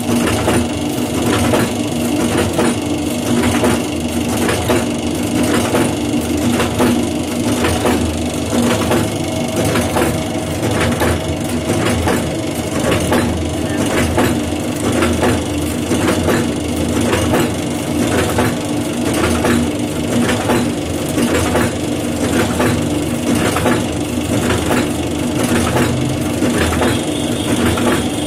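Ten-die tablet press machine running, its punches stamping powder into tablets with a regular clatter about twice a second over a steady motor hum.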